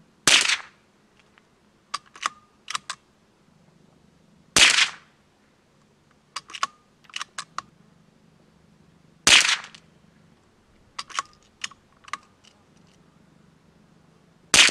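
Four suppressed shots from a Weihrauch HW66P .22 LR bolt-action rifle firing Aguila Super Extra, about four and a half seconds apart. Each is a sharp crack with a short tail, the last right at the end. Between shots come a few quick metallic clicks of the bolt being worked. This ammunition goes a little faster, so the shots are somewhat louder and keep a supersonic crack even through the suppressor.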